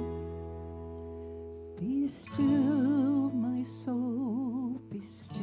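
A woman singing a hymn with a wide vibrato over sustained instrumental chords. For the first couple of seconds only the accompaniment's chord is heard, fading, before her voice comes in and sings a few phrases with short breaks between them.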